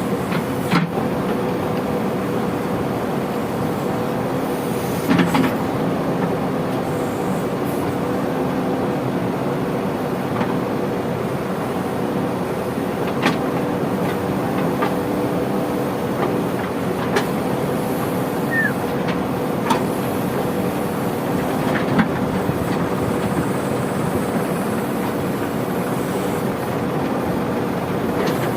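Diesel engine of a JCB 3DX backhoe loader running steadily at work, with a handful of short sharp knocks scattered through.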